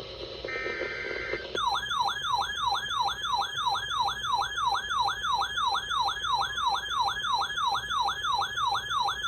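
Emergency Alert System broadcast tones. First comes a short burst of digital header data tones over hiss. About one and a half seconds in, a siren-like attention tone begins and repeats evenly: quick falling sweeps, about three a second.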